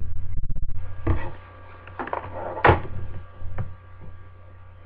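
Handling noise from the moving webcam: rubbing, bumps and knocks, the sharpest knock a little before three seconds in, over a steady electrical mains hum.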